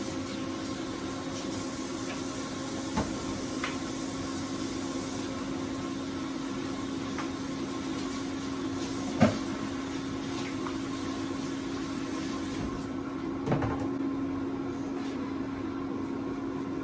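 Air fryer running with a steady hum. A few light clicks and knocks sound over it, and a high hiss stops about thirteen seconds in.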